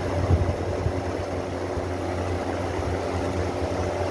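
Almonard In & Out exhaust fan running steadily on its new capacitor: a constant motor hum with the rush of air through the blades.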